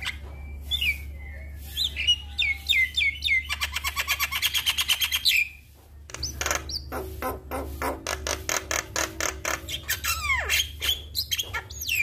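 Javan myna (jalak kebo) singing: a string of short whistled notes that drop in pitch, then a fast rattle of clicks. After a brief break about halfway through, a longer run of rapid harsh chattering follows, with falling whistles near the end, over a steady low hum.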